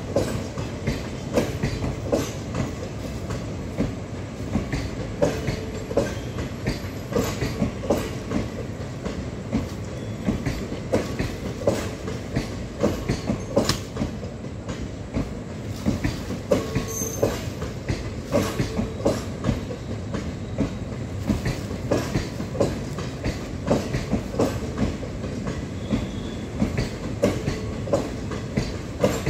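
Passenger train running slowly: a steady rumble of wheels on rail with clacks about once a second as the wheels cross rail joints.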